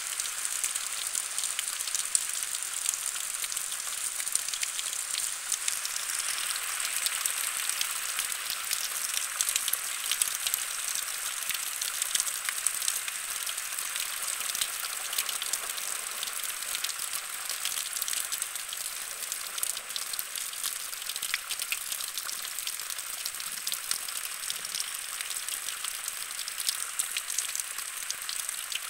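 Steady rain falling during a thunderstorm, a dense hiss of many small drop patters with no thunder heard.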